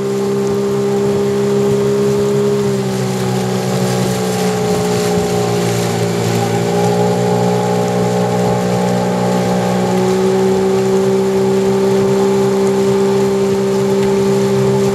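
Boat motor running steadily at cruising speed, a constant drone whose pitch dips slightly about three seconds in and rises back about ten seconds in.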